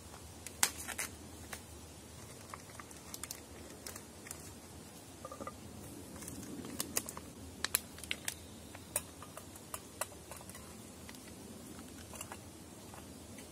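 Plastic food packaging being opened and handled: scattered faint crinkles and sharp clicks, a few at a time.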